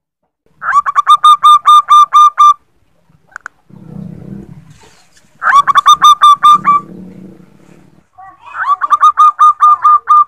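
Female zebra dove (perkutut) calling: three bouts of rapid staccato notes, about five a second, each bout lasting under two seconds. This is the female's call to males.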